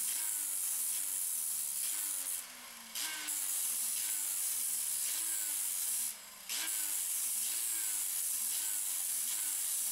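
A power tool's spinning wheel grinds down a fiberglass rod blank as it is turned against it, making a steady hiss with a faint falling tone that repeats a little over once a second. The hiss drops out briefly twice, about two and a half seconds and six seconds in, as the blank comes off the wheel.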